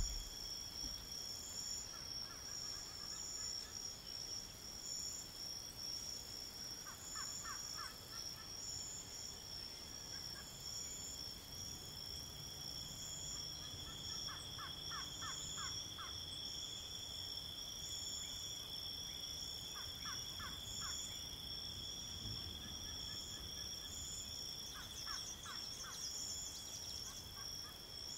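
Outdoor wildlife ambience: a steady high-pitched shrill drone, one strand of it pulsing, with a bird's short rapid series of fowl-like notes repeating about every five to six seconds.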